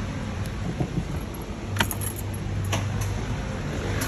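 A set of keys jangling and clicking a few times, about a second, two seconds and nearly three seconds in, over a steady low hum.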